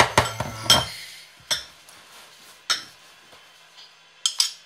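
Metal teaspoon clinking and scraping against a ceramic bowl while scooping and tipping out powder. There is a loud cluster of clinks in the first second, single clinks about a second and a half and nearly three seconds in, and a quick pair near the end.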